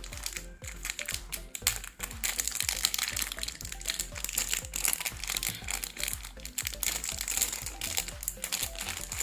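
Packaging crinkling and rustling in irregular crackles as a stylus pencil's pouch is unwrapped and opened, over background music.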